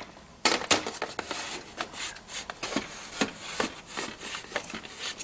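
Metal cover of a T5 aquarium light fixture being slid along its housing: irregular scraping and rubbing with scattered clicks and knocks, a sharp one about half a second in.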